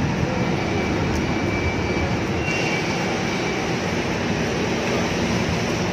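Steady din of a rail transit station at the ticket counter: a constant rumbling noise with a faint high whine that comes and goes.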